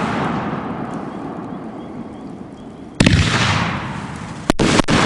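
500-gram, 9-shot firework cake firing aerial shells. A fading rumble gives way to a loud boom about three seconds in, then two sharp bangs close together near the end, each trailing off into a rumble.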